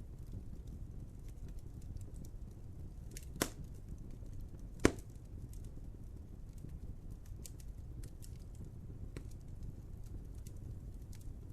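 Wood fire crackling over a steady low rumble, with scattered small ticks and two sharp pops about three and a half and five seconds in, the second the louder.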